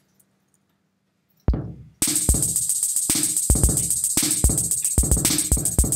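Programmed drum beat played back from a software drum kit in Ableton Live. A kick comes about a second and a half in, then straight 16th-note hi-hats join with kick and other drum hits. It is rigidly quantised and very mechanical sounding.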